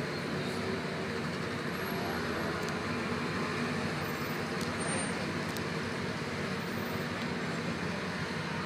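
Steady engine hum and traffic noise from a vehicle moving slowly through congested city-street traffic.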